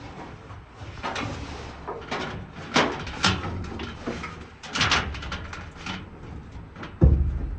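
Irregular knocks and scrapes of dryer parts being handled during reassembly after a belt replacement. A louder low rumble starts near the end.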